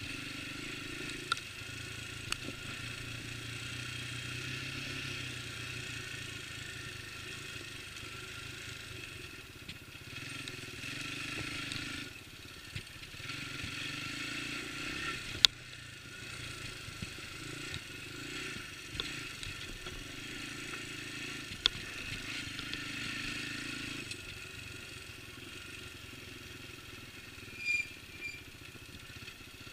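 Yamaha Moto-4 225 ATV's single-cylinder four-stroke engine running under way over rough ground, its pitch and level rising and falling with the throttle. A few sharp knocks come through it.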